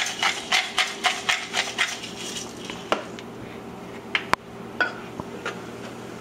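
Hand pepper mill grinding black pepper, a rhythmic rasping crunch about four strokes a second that fades out after two seconds or so. It is followed by a few scattered clicks and knocks of kitchen utensils against the pot, over a faint steady hum.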